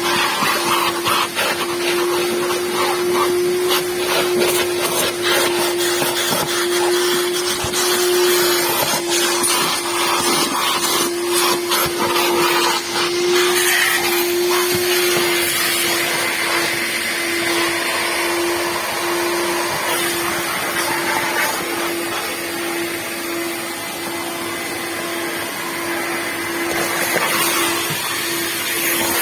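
A motor running steadily, with a constant mid-pitched hum over a rushing hiss, and scattered clicks and rattles through the first half.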